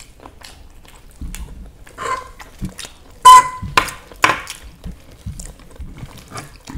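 Noodles being eaten: scattered clicks of cutlery against a dish and eating noises. The loudest is a sharp sound with a brief ringing tone about three seconds in.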